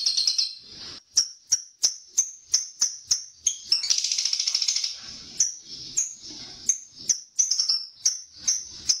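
Lovebird calling: a string of sharp, high chirps at about three a second, broken about four seconds in by a second-long burst of rapid chattering trill.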